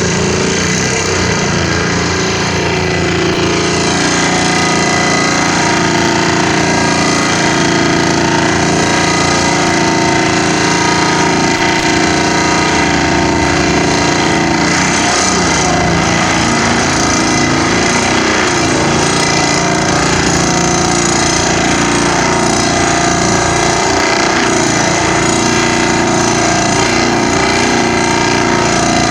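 Vibratory pile hammer driving steel sheet-pile profiles into the ground: a loud, continuous mechanical drone with a rapid vibrating buzz and steady tones, not separate hammer blows.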